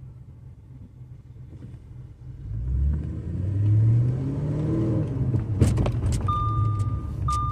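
Audi RS5's 4.2-litre V8 pulling away, rising in pitch, then a sharp thump about two seconds from the end as the car goes over the bump, followed by a few light clicks. Near the end a chime beeps about once a second.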